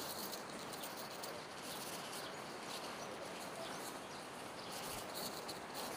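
Quiet outdoor ambience: a steady hiss of background noise with a faint, high, steady buzz of insects.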